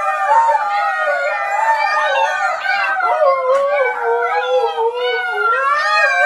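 Several animals crying at once in long, wavering, overlapping calls, like a howl.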